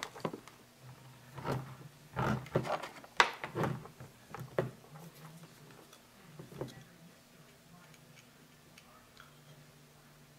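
Light clicks and knocks of hands handling wires and small parts: insulated crimp connectors on red and black leads being worked onto a capacitor's terminals, several in the first few seconds and then fewer, over a faint steady low hum.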